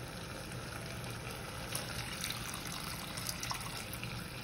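Water being poured into a pan of poppy-seed (posto) gravy, a steady hiss with a few faint clicks about two seconds in.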